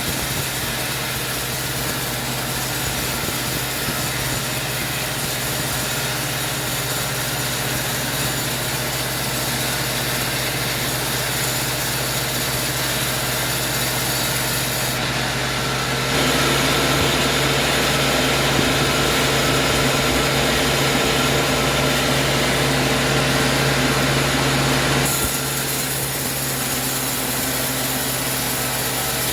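Sawmill machinery running steadily with a constant hum. From a little past halfway, for about nine seconds, it gets louder with a harsh hiss of the saw cutting through wood, then settles back to the steady running.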